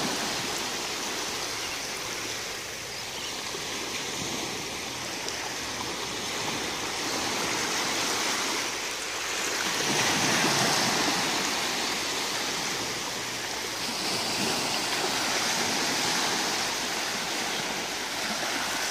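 Small waves breaking and washing up a sandy shore in a steady hiss that swells and eases, loudest about ten seconds in.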